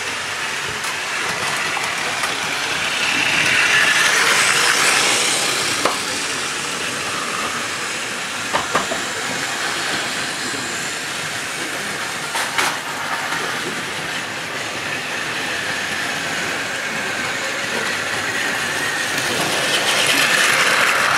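Plarail battery-powered toy trains running on plastic track: a steady whir of small motors and wheels that swells as a train passes close about four seconds in and again near the end, with a few sharp clicks between.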